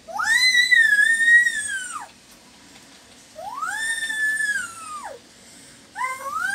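Three long, high-pitched animal cries, each about two seconds long, with short gaps between them. Each one rises at the start, holds, then falls away; the third begins near the end.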